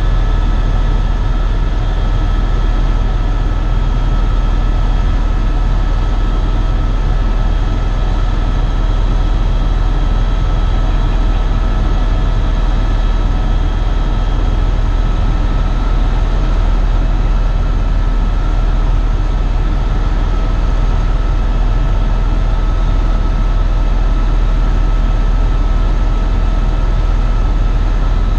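Eurocopter EC130 EcoStar helicopter in flight, heard from inside the cabin: a steady, loud rotor and engine rumble with constant whining tones from the turbine and gearbox.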